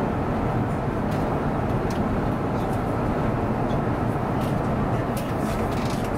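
Steady cabin noise of an Airbus A350-900 in flight: an even rushing of airflow and engines, with a few faint light clicks.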